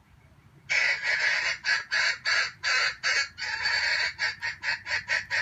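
Junglefowl cackling: a run of loud, harsh calls starting under a second in, coming faster toward the end.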